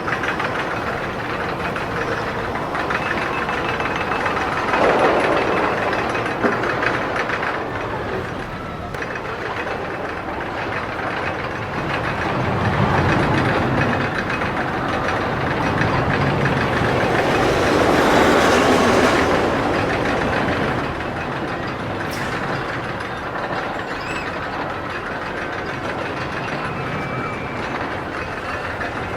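Roller coaster train running along its track, a continuous rattling rush that swells about 5 seconds in, again around 13 seconds, and most strongly about 18 seconds in.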